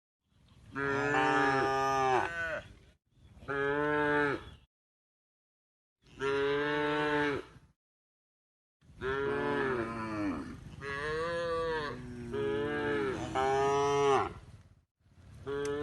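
Cow mooing over and over: several drawn-out calls, each a second or two long with short silent gaps, and a longer run of calls from about nine seconds to fifteen.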